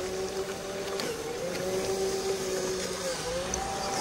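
Electric drive motor and gearbox of a radio-controlled truck whining steadily, the pitch wavering up and down for a couple of seconds in the middle as the throttle changes.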